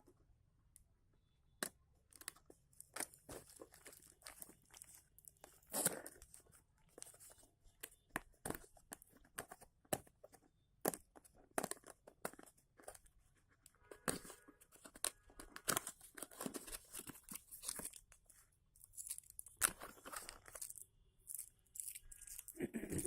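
Packaging being torn open and crinkled by hand: irregular crackling, tearing and rustling, starting about a second and a half in.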